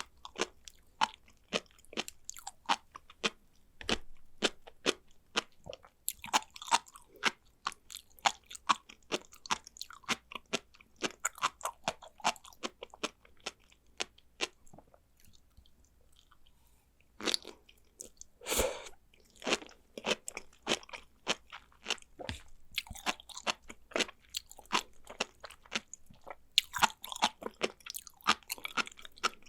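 Close-miked chewing of sea grapes: the small seaweed beads pop and crunch as rapid trains of crisp clicks. The chewing pauses a little past halfway, then resumes.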